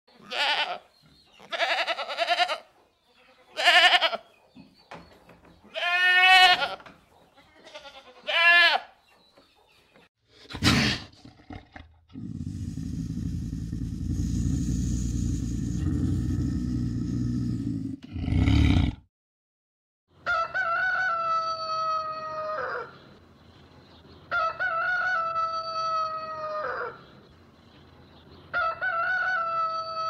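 Farm animal calls: a run of short bleating calls, one with a strong wavering tremble, then a sharp knock and about six seconds of steady low noise, then three long crowing calls about four seconds apart, each falling in pitch at the end.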